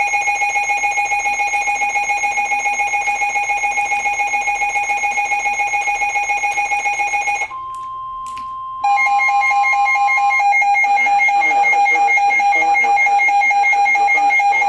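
Emergency Alert System attention signal on the radio: a loud, steady electronic alert tone. About 7.5 s in it breaks off to a quieter single higher tone, then the loud alert tone resumes about 9 s in. The tone announces the severe thunderstorm warning that follows.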